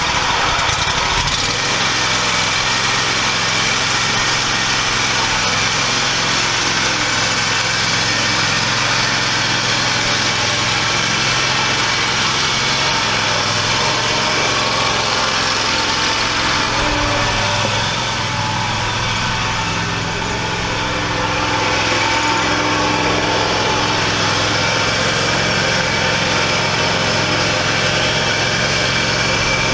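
Engine of a Scag Cheetah zero-turn mower running steadily while it tows a homemade log hauler, dipping slightly in loudness for a few seconds past the middle as it moves off.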